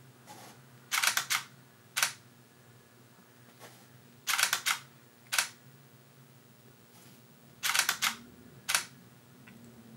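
Nikon camera shutter firing three times, a few seconds apart. Each time it gives a quick run of three or four clicks, then a single click a moment later, as the photos are taken while the stepper-motor turntable advances.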